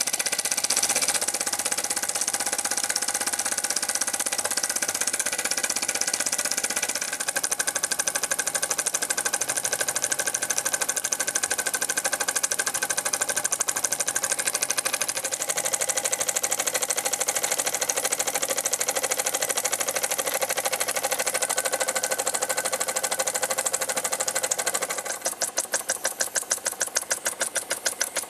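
Unrestored Parken toy steam engine running fast, with a rapid, even beat of steam exhaust and mechanical clatter. Near the end the beats slow and each one stands out separately.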